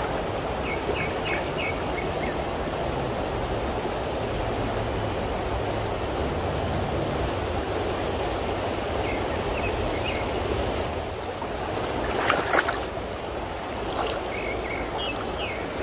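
Shallow creek water running steadily, an even rushing sound throughout, with a brief louder burst of noise about twelve seconds in.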